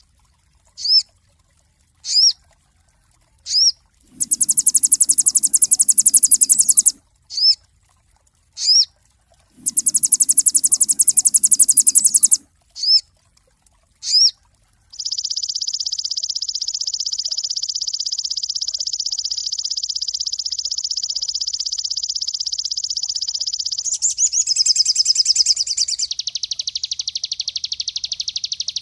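Crimson sunbird (sogon) song: single sharp, rising high chips about a second apart, two bursts of fast, high trill lasting about three seconds each, then a long unbroken rapid trill from about halfway that shifts to a rattlier, lower trill near the end.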